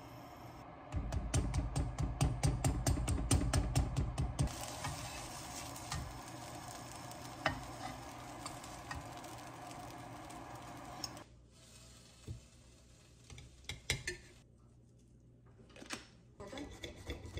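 Tortilla pizza sizzling in a nonstick frying pan as it is browned on both sides, with a fork and a slotted spatula scraping and tapping against the pan; a rapid run of strokes in the first few seconds, then a steady sizzle. About two-thirds in it goes quieter, with a few separate knocks.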